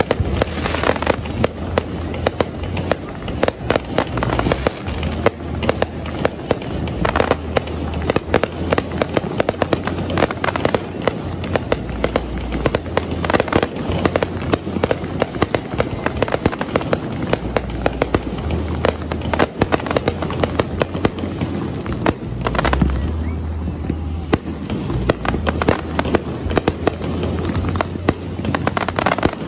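Fireworks display: a dense, continuous barrage of aerial shell bursts and crackling, with many bangs a second overlapping.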